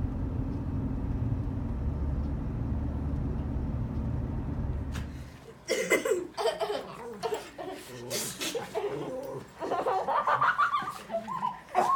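Steady low rumble of a moving car heard from inside the cabin, cutting off suddenly about five seconds in. It gives way to a jumble of children's voices and laughter, with sharp knocks, as they play with the dogs.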